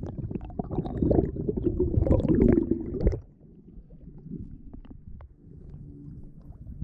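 Muffled underwater sloshing and gurgling of water moving around the submerged camera housing: a loud low rumble for about three seconds, then dropping suddenly to a quieter rumble.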